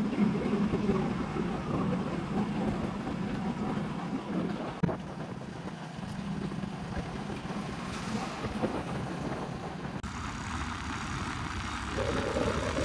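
Steady rush of wind buffeting the microphone over a motorcycle running along at road speed.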